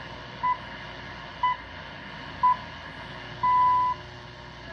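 BBC Greenwich Time Signal pips heard through a 1949 Westinghouse International tube radio on shortwave: three short high beeps a second apart, then a longer final beep marking the top of the hour. Steady shortwave static hiss runs underneath.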